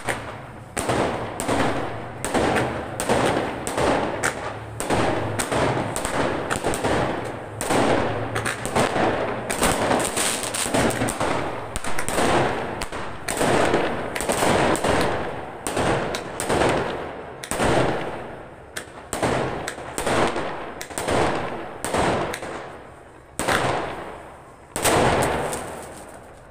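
Aerial fireworks going off in rapid succession: sharp bangs, more than one a second, each fading quickly. Near the end there is a short lull, then one more loud bang.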